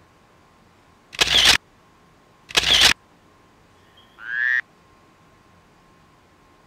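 Two short bursts of rushing noise, about a second and a half apart, then a brief pitched sound effect a little past the middle. These are comic sound effects added in the edit.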